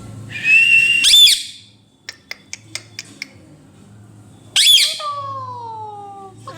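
Pet parrot calling: a whistled note leads into a loud screech about a second in. A few soft clicks follow, then a second loud screech at about four and a half seconds that trails off into a long falling whistle.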